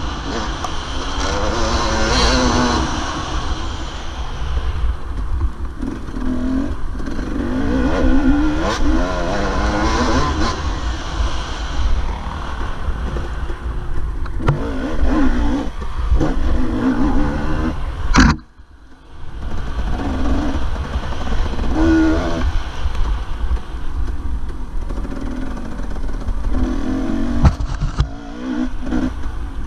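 Dirt bike engine being ridden hard, revving up and falling back again and again as the throttle is worked over rough ground. About 18 seconds in there is a sharp knock, the engine drops away for about a second, then picks up again.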